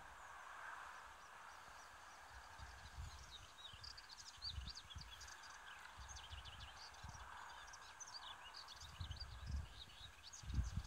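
Melodious warbler singing a fast, chattering jumble of high twittering notes, starting about four seconds in. Irregular low rumbles run underneath and grow louder near the end.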